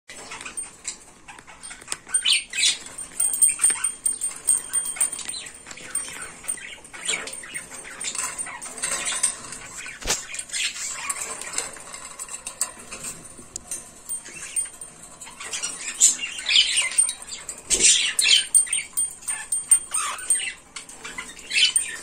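Cockatiel giving harsh, raspy calls in repeated short bursts, several clustered together at a time.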